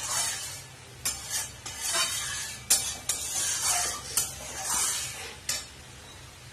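A spatula stirring and scraping in a stainless-steel pan of sizzling fish curry. It comes in about eight short strokes, each with a burst of hiss from the hot gravy.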